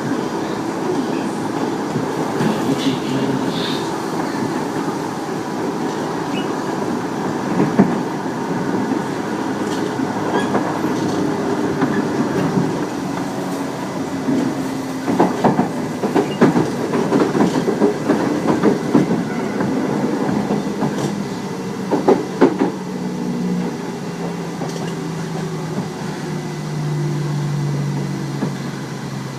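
Running sound inside a Tobu 30000 series electric train, a steady rumble with clusters of wheel clacks over rail joints midway. Near the end a motor tone falls in pitch as the train slows. This set is one the uploader believes has permanent-magnet synchronous motors.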